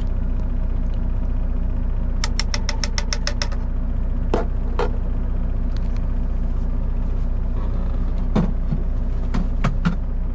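Semi-truck's diesel engine idling steadily, heard from inside the cab. Over it come light clicks of cookware being handled: a quick run of about ten a couple of seconds in, then a few single clinks.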